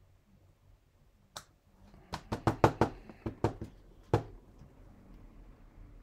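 Knocks of a wood-mounted rubber stamp being tapped and pressed down on the work table: a single knock, then a fast run of about seven, then one more.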